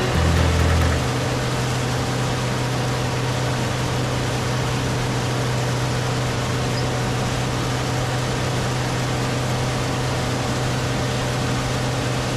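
Heavy farm machine's diesel engine running at a steady speed, a constant deep hum, with a brief louder low rumble about half a second in.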